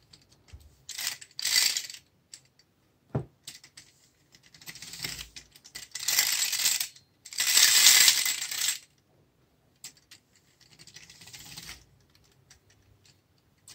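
The clockwork motor of a Lehmann New Century Cycle tinplate toy running in short spells, a metallic whirring and rattling of its gears and tin body. It starts and stops about five times, and the loudest spell comes about eight seconds in.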